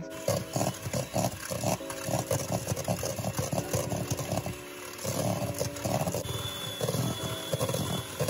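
Electric hand mixer running, its twin beaters churning a thick, crumbly mixture and knocking against a stainless steel bowl, giving an uneven, pulsing growl.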